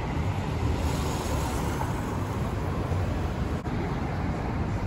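Steady city street noise of passing traffic, with wind rumbling on the microphone.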